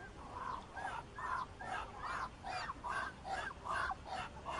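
Muscovy ducks calling in a steady run of short, hoarse calls, about two to three a second.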